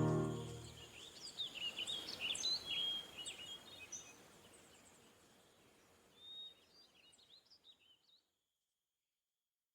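Birds chirping and calling, a quick run of short sharp calls followed by a few fainter ones, over a light hiss; the end of guitar music fades out in the first second, and the sound stops dead about eight seconds in.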